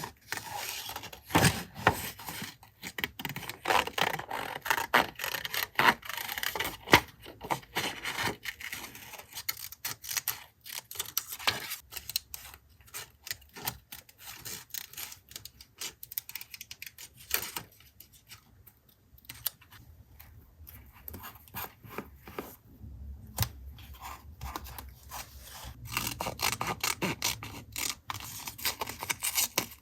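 Paper collage work: paper and stationery being handled and rubbed, with irregular taps, rustles and scraping strokes. Quieter stretch a little past the middle.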